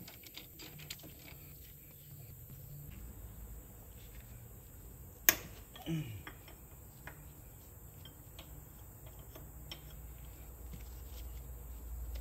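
Faint, scattered clicks of a hand wrench working a tractor's steering tie-rod nut, with one sharp metallic clink about five seconds in, over a steady high-pitched hiss.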